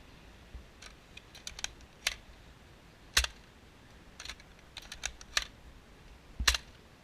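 Scattered light plastic clicks of a Nerf toy blaster being handled and worked, with two louder snaps, one about three seconds in and one near the end.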